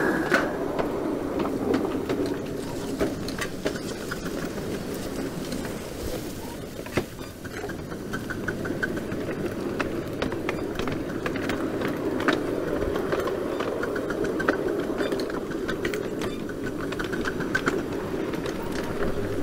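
Small 5-inch gauge garden railway train running along its track: a steady rumble with many clicks and rattles from the wheels and wagons, and short runs of evenly spaced ticks.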